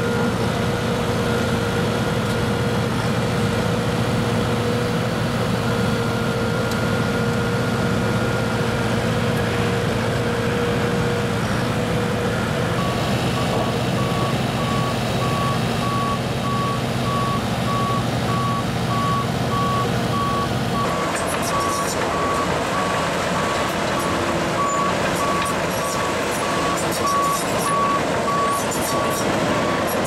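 Case 650M WT crawler dozer's diesel engine running steadily as it works. From a little under halfway a reversing alarm beeps at an even rhythm. In the last third there is clicking from the steel tracks.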